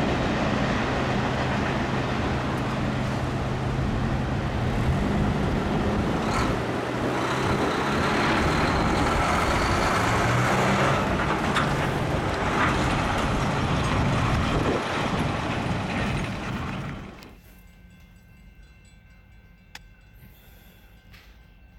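Loud, steady rumble of a CSX mixed freight train going away from a grade crossing, mixed with road vehicles driving over the crossing as the gates lift. About seventeen seconds in it drops suddenly to a much quieter background.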